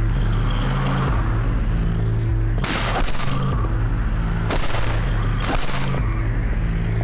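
Tense background music with repeated low bass notes, cut through by three gunshots about three, four and a half and five and a half seconds in.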